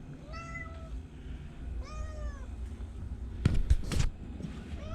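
Domestic cat meowing twice, short calls that rise and fall in pitch, with a third beginning at the end: the 'aru' meow it makes when it wants to be let outside. A few sharp knocks sound about three and a half seconds in.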